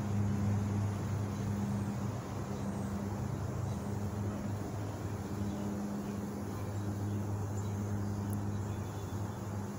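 Honeybees buzzing around an opened, crowded hive: a steady low hum that swells and fades as bees fly near and away.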